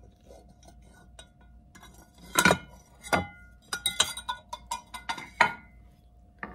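A metal fork clinking and scraping against the nonstick pot of a Dash Mini rice cooker and a ceramic plate as the pot is lifted off a turned-out frittata: two sharp clinks, then a quick run of clicks and scrapes with short ringing strikes.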